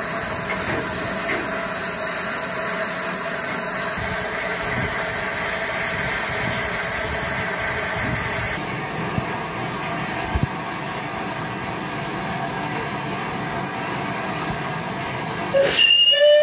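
Battle of Britain class steam locomotive 34059 'Sir Archibald Sinclair' standing with a steady hiss of steam. Its whistle blows loudly near the end.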